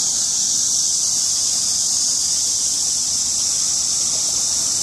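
Steady high-pitched insect chorus, unbroken throughout.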